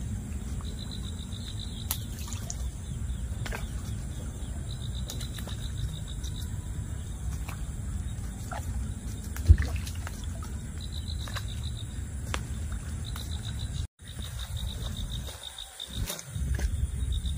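Outdoor ambience: an insect chirping in fast pulses, over a low steady rumble, with a single sharp knock about nine and a half seconds in.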